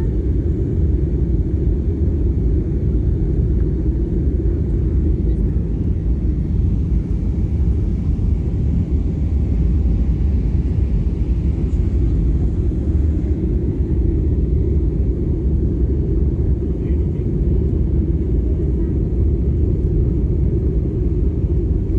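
Airliner cabin noise from an Airbus A320: a steady, low rumble of engines and airflow that does not change.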